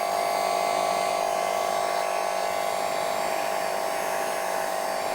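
Handheld heat gun running steadily: an even electric fan-motor hum and whine with a rush of blown air.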